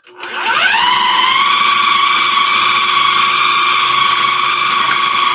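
Electric food processor starting up: its motor whine rises over the first second, then holds steady at full speed as it chops the mixture.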